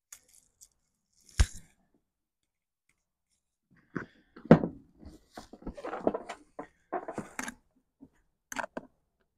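Handling noises from a motorcycle saddlebag and its mounting hardware: a single sharp knock about a second and a half in, then after a pause a run of irregular knocks, rustles and scrapes as the bag and its fittings are worked on.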